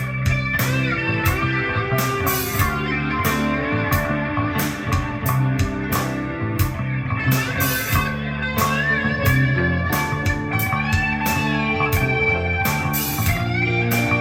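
Guitar-led instrumental music with a steady drum beat, played through a Pioneer SX-45 receiver and Onkyo D-66RX bookshelf speakers and picked up in the room by a handheld recorder.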